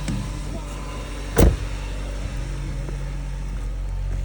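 Car engine idling steadily, heard close to the exhaust, with a single sharp thump about a second and a half in.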